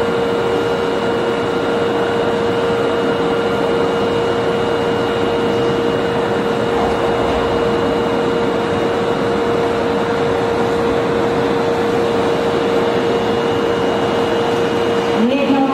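JNR 485-series electric limited-express train easing up to a platform and standing with its equipment running: a loud, steady hum with a constant whine held at one pitch.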